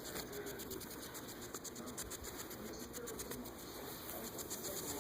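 Pet hedgehog making a faint, rapid, scratchy crackling noise.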